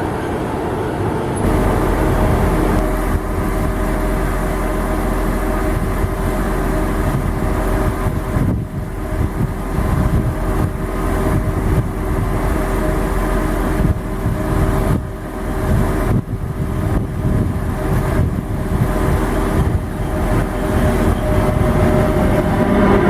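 A train running, with a steady rumble under a constant hum of several steady tones. A deep, low drone joins about a second and a half in.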